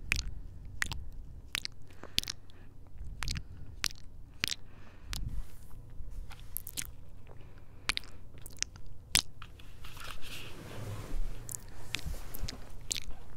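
Close-miked lip kisses pressed right against a handheld recorder's microphone: a string of sharp, wet smacks, irregularly spaced, about one every half second to a second.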